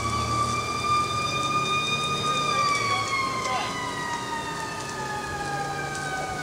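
An emergency vehicle's siren holding one high pitch, then gliding slowly down in pitch from about halfway through, over a low steady rumble.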